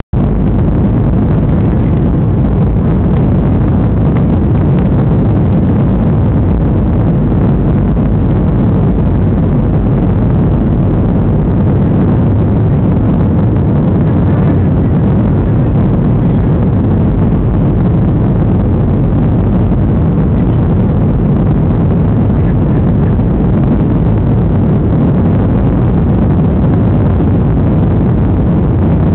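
Steady, unbroken engine and airflow noise of a Boeing 737-300 with CFM56-3 turbofans, a loud low rush.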